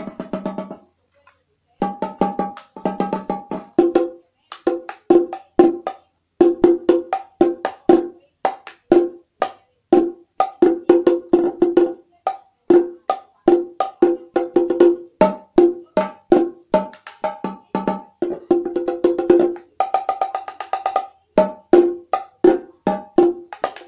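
Pitched wooden percussion, struck by hand in quick rhythmic runs on a few different notes, with brief pauses between phrases.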